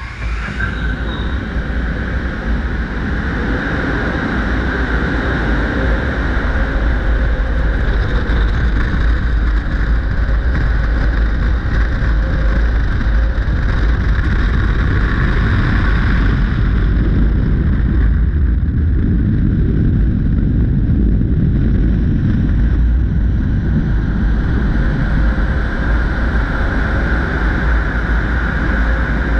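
Car wash blower dryers running, a loud, steady rush of air with a low rumble, blasting the wet car and buffeting the microphone.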